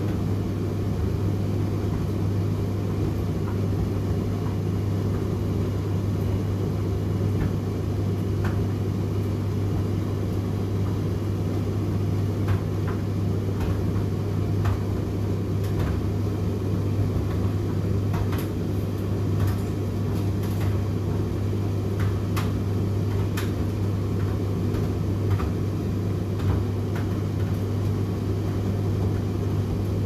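Indesit IDC8T3 8 kg condenser tumble dryer in its cooldown phase, drum turning and fan running with the heater off: a steady low hum and rumble, with scattered light clicks.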